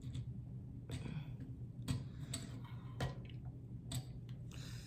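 Hard-plastic action-figure parts clicking as Energon effect pieces are pulled off the figures: a few light, separate clicks about a second apart, over a faint low hum.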